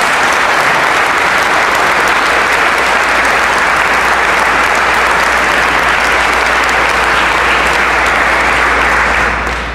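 Large audience applauding, a dense steady clapping that dies away shortly before the end.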